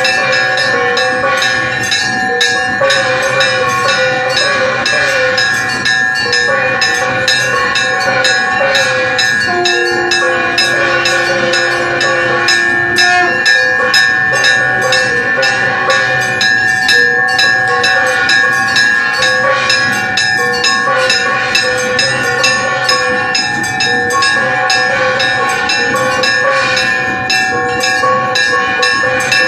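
Temple bells clanging rapidly and without a break for the aarati lamp-offering, with steady held tones over them. A lower held note joins from about ten to thirteen seconds in.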